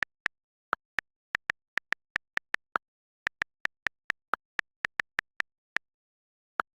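A run of about two dozen short, high clicks in quick, uneven succession, with a short break about halfway and a last lone click near the end.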